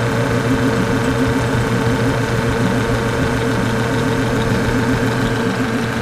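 Late-1920s Frigidaire sulfur dioxide refrigerator's compressor and repulsion-induction motor running with a steady hum. It is in its running cycle, pulling the low-side pressure down until the pressure-based cold control cuts it off.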